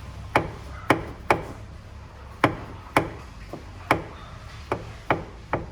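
Sharp metallic clunks, about ten at uneven spacing, from a Fiat Uno Mille's mechanical steering rack knocking in its mounting as the steering is worked back and forth. The rack bushing has burst and no longer holds the rack, leaving free play.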